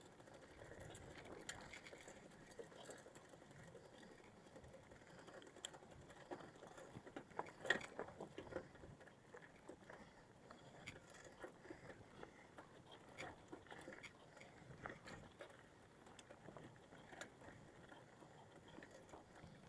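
Near silence, broken by faint scattered ticks and taps, with a brief cluster of them about eight seconds in.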